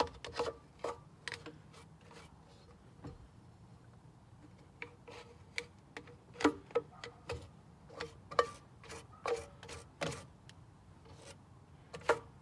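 Small cleaning brush scrubbing debris and carpet fiber out of the inside of an Oreck Orbiter floor machine: irregular clicks, taps and short scratchy scrapes, a few louder strokes in the second half.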